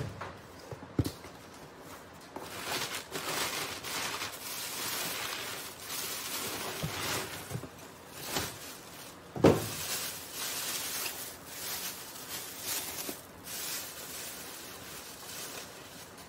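A heavy cardboard box thumps down on a steel counter, then cardboard flaps and plastic bags crackle and rustle as the box is unpacked. A bag full of leaves is set down with a louder thump about nine seconds in.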